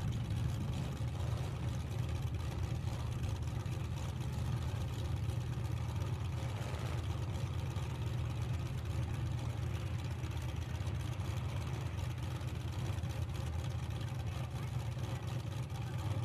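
Several demolition derby car engines idling together, a steady low rumble.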